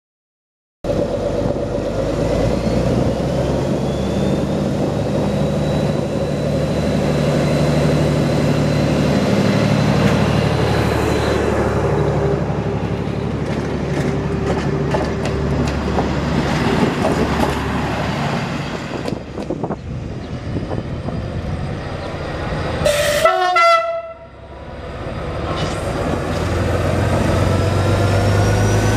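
Caravelle diesel railcar engines running at a station platform, with a short horn toot about three-quarters of the way through. Near the end an engine revs up, its pitch rising.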